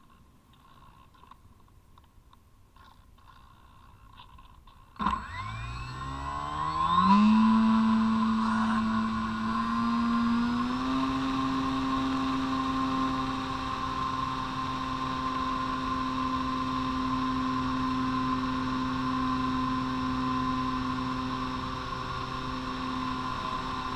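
Faint wind and rattle for a few seconds, then the Parkzone Radian Pro's electric motor and propeller start suddenly. The whine rises in pitch over about two seconds and steps up once more, then runs steadily at full power.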